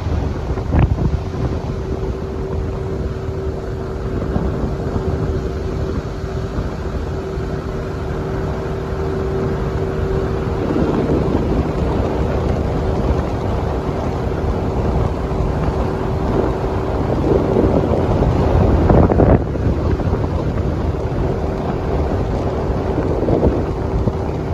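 Small boat's motor running at a steady cruising speed, a steady hum under heavy wind buffeting on the microphone.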